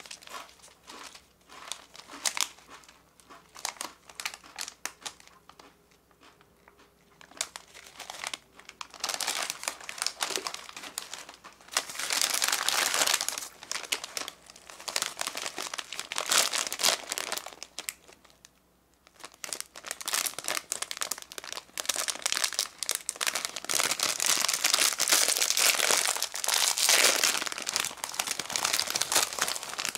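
Plastic and foil-lined snack bags crinkling as they are handled, light and sparse at first, then dense and loud from about nine seconds in, with a short lull about two-thirds of the way through. Near the end a foil-lined bag of corn snacks is being pulled open.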